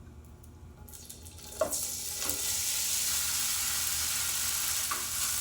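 Cold leftover brown rice going into hot olive oil in a non-stick skillet. It starts to sizzle about a second and a half in, with a couple of soft knocks, then fries steadily.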